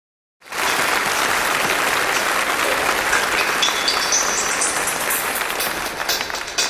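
Applause from a crowd: a dense, steady clapping noise that starts suddenly about half a second in, with a short run of high tones stepping upward partway through.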